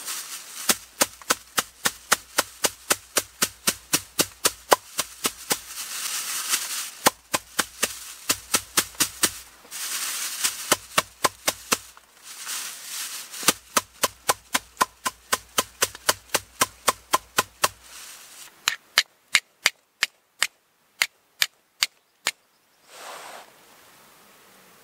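Steel striker struck repeatedly against a flint to throw sparks for lighting char cloth: sharp clicks, about four a second, in runs of several seconds with short pauses, thinning out to separate strikes before they stop.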